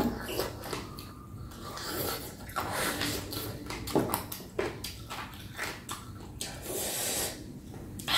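Close-up eating sounds of chicken feet pickled with lemongrass and kumquat being chewed and sucked: wet mouth clicks, smacks and squelches, uneven and frequent.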